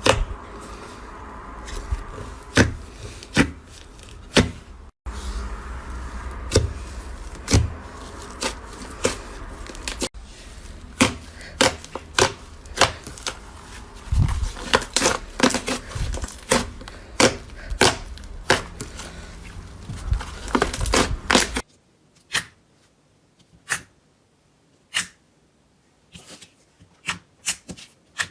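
Slime being pressed and played with by hand, making irregular sharp clicks and pops, several a second. A low hum and hiss under the clicks cuts off suddenly about three-quarters of the way through, leaving only the clicks.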